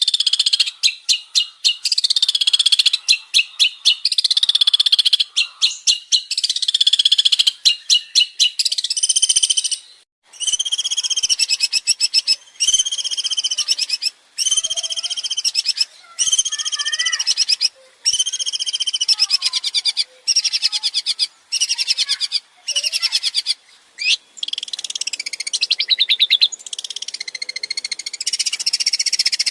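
Male long-tailed shrike (cendet) in full song. It gives fast, high chattering notes for about the first ten seconds, then a run of repeated short arching phrases a little over once a second, then mixed varied warbling near the end.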